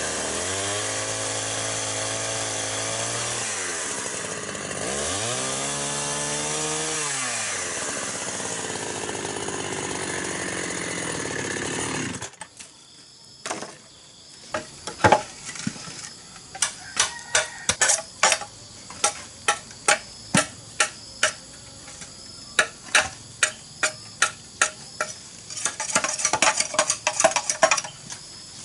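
Gasoline chainsaw running and cutting through green bamboo: its engine pitch drops twice as it bogs in the cut and then recovers. The saw cuts off suddenly a little before halfway through. After that comes a run of sharp knocks, roughly one or two a second, as a machete chops into a bamboo section.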